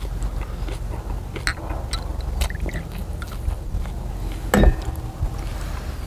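Eating at a table: chewing and the small clicks and clinks of chopsticks and glasses, with one louder knock about four and a half seconds in, over a steady low rumble.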